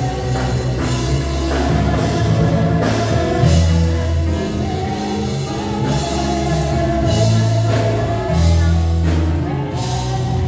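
Live church worship band playing a gospel song: drum kit, electric bass and keyboard, with women singing the melody into microphones in long, held lines.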